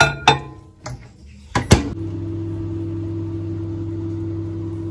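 Microwave oven heating a bowl of sugar-and-water caramel: a few sharp clicks and knocks, then about two seconds in it starts running with a steady hum.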